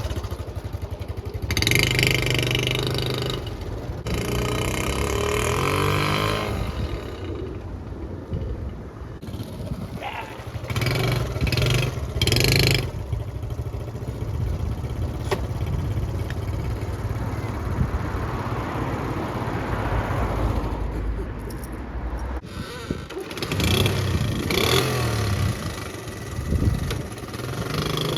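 Honda Cub C70's small single-cylinder four-stroke engine running on the road, its pitch rising several times as it revs up through the gears.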